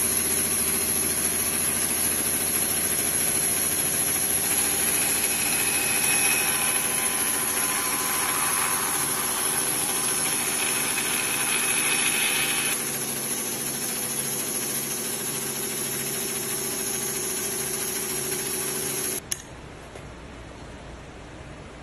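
Bandsaw running steadily with an even machine hum, dropping somewhat in level about two-thirds of the way through. Near the end the hum stops abruptly with a click, leaving a soft, even hiss.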